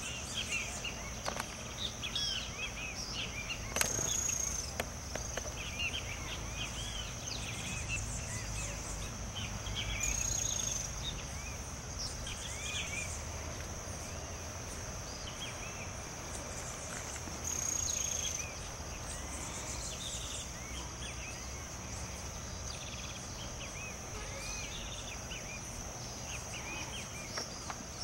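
A steady high-pitched insect drone with short bird chirps scattered throughout. The drone briefly swells louder three times, about 4, 10 and 17 seconds in.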